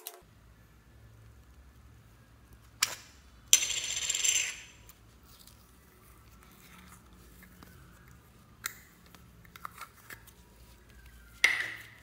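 A small plastic slime container being handled and opened: a few sharp clicks and taps, a longer, louder scraping rustle about three and a half seconds in, and another loud click near the end, with faint handling sounds between.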